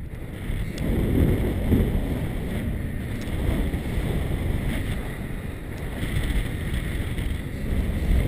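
Wind rushing over an action camera's microphone in paragliding flight: a steady low buffeting rumble, with a few faint ticks.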